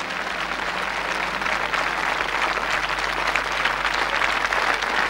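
Large audience applauding, the clapping building over the first second or so and then holding steady.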